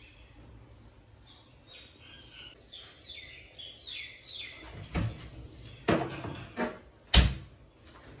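A bird chirping over and over in short, falling high notes, followed near the end by four sharp knocks, the last one the loudest.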